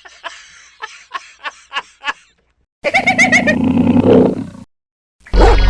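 A string of sound-effect clips: about eight short, quick pulses, then, after a brief gap, a loud animal roar lasting under two seconds. Music cuts in just before the end.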